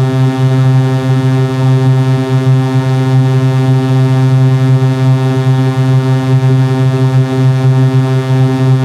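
Loud, steady synthesized buzzing drone with a low pitch and many overtones, holding one unchanging tone.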